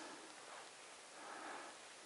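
Two soft breaths close to the microphone over a faint, steady outdoor hiss.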